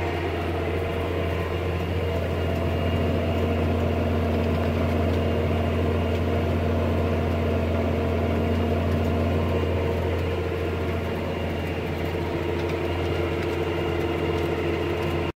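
John Deere tractor's diesel engine running steadily while pulling a row-crop planter, heard from inside the cab as a steady low drone.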